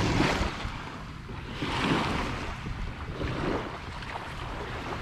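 Wind buffeting the microphone and water lapping and splashing around a kayak on choppy water, coming in rising and falling surges every second or two.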